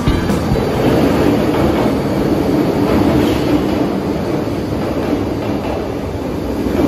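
MTR Metro Cammell M-train electric multiple unit running on the line: a steady rumble of wheels and motors that eases a little in the second half.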